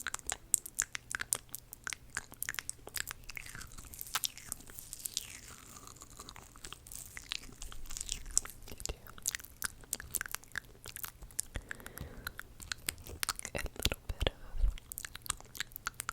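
Close-miked ASMR mouth sounds: a quick, irregular run of wet clicks and smacks.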